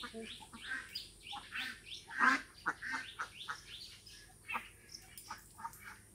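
A run of short, irregular animal calls, chirping and squawking, with the loudest one about two seconds in.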